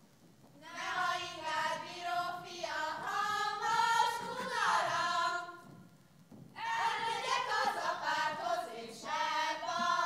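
A group of women and girls singing a Hungarian folk song together, in long phrases with a pause of about a second midway.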